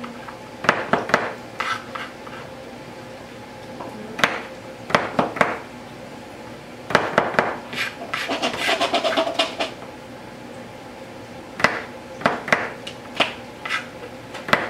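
Kitchen knives chopping mushrooms on plastic cutting boards: scattered groups of quick sharp taps, with a denser run of chopping about halfway through.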